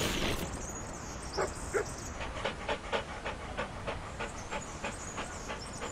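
A dog panting quickly, about four short breaths a second, starting about a second and a half in. A rushing noise fades out in the first half second.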